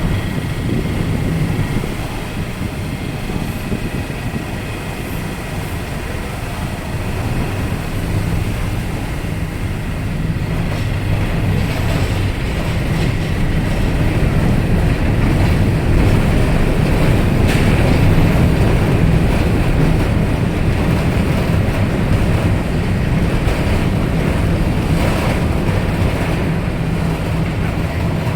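Diesel engines of a Hong Kong passenger ferry running under way, a steady low drone with a rushing hiss over it. It grows somewhat louder through the middle and eases slightly near the end.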